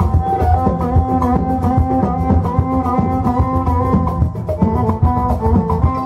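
Live band playing an instrumental passage: keyboard and violin carrying a melody in held, stepping notes over a drum kit and congas keeping a steady beat.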